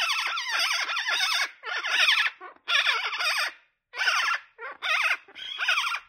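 Monk parakeets calling in fast, harsh chatter with quick rises and falls in pitch. The calling runs unbroken for about a second and a half, then comes in short bouts with brief pauses.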